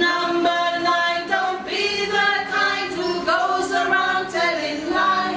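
A group of voices, children and adults, singing a simple worship song together in unison: the lines about the eighth and ninth commandments.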